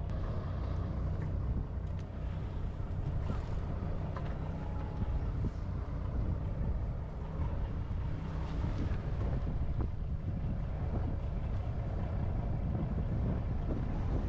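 Wind buffeting the microphone outdoors by the sea: a steady low rumble with a faint hum under it.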